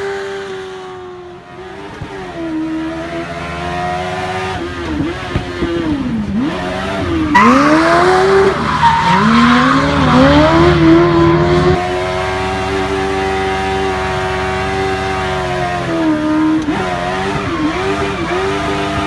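Kawasaki ZX-9R inline-four motorcycle engine in a Mitsubishi Minica kei car, revving high and dropping and climbing in pitch again and again through throttle lifts and gear changes. A few seconds in, tyres squeal for about four seconds while the car drifts. After that the engine holds a steady high rev for several seconds, then dips and rises again near the end.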